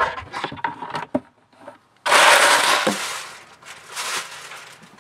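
Handling noise from things being packed into a campervan's under-bench storage compartment: a quick run of light knocks and clatters, then a loud rustle of about a second about two seconds in, followed by a few more knocks.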